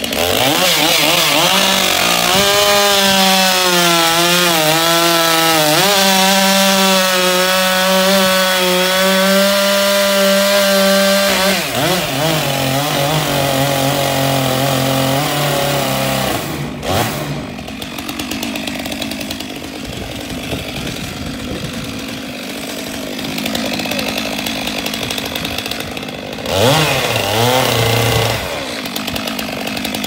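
Stihl chainsaw running and cutting through a sycamore log. Its engine pitch dips and wavers as the chain bites. There is a brief break partway through and a quick rising rev near the end.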